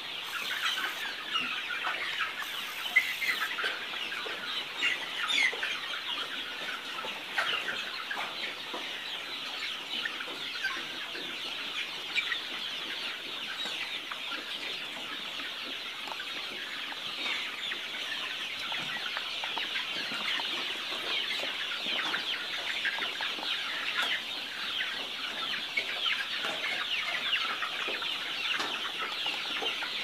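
A large flock of chickens clucking and chirping without a break, many calls overlapping into a steady chatter, with a few louder single clucks standing out about three and five seconds in.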